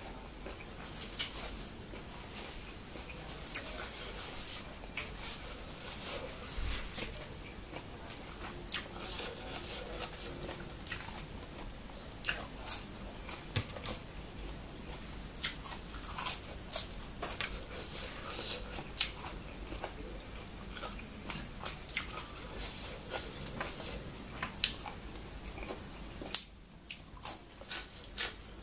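Close-up chewing and biting of spicy larb and fresh raw vegetables: wet mouth clicks and crunches throughout, with sharper, louder crunches near the end.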